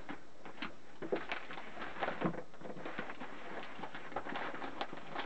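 Newspaper crinkling and rustling in short, irregular crackles as a tightly rolled newspaper bundle is handled and tied with a palm leaf.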